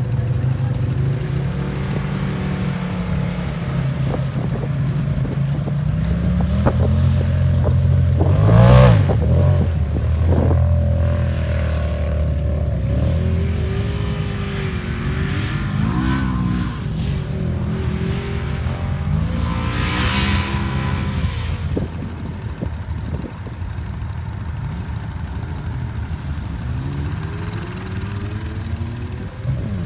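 An off-road vehicle's engine running and revving up and down again and again as it is driven, loudest on a surge about nine seconds in.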